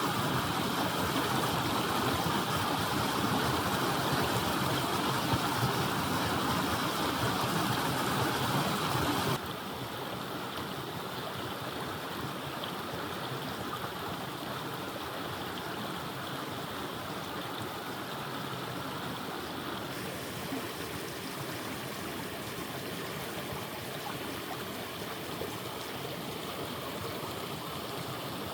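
Water of a waterfall rushing steadily, an even hiss of falling and running water. About nine seconds in it drops suddenly quieter and carries on at the lower level.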